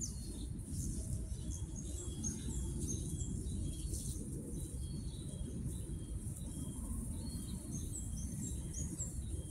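Outdoor ambience: small birds chirping in many short, high notes over a steady low rumble of background noise, with a steady high-pitched hiss throughout.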